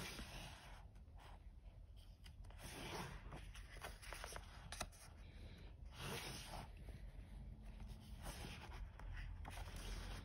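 Paper pages of a colouring book being turned and pressed flat, rustling and sliding in several short bursts.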